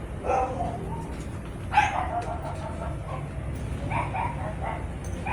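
A few short animal calls, in three brief groups, over a steady low hum.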